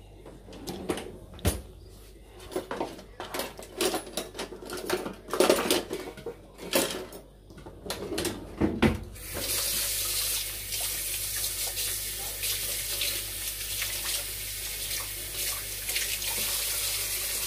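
Kitchen tap running into a sink, turned on about nine seconds in and then flowing steadily. Before it come irregular knocks and clinks of kitchenware being handled.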